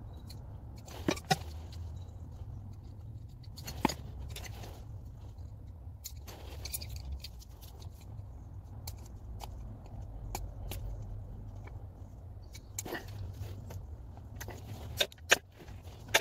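Scattered light clicks, taps and scrapes of a screwdriver and other hand tools working against the metal of a car's rear hub and suspension arm. The sharpest taps come about a second in, near four seconds and near the end, over a low steady hum.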